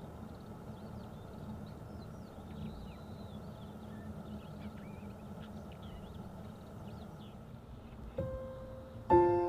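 Small birds chirping, short high calls over a steady outdoor background hiss. About eight seconds in, piano music begins with a single note, then a loud chord just before the end.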